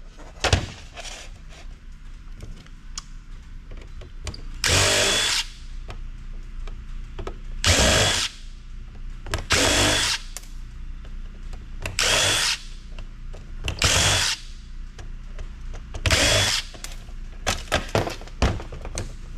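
Power drill running in six short bursts of about half a second to a second each, each with a steady motor whine, with small clicks and knocks of handling between the bursts.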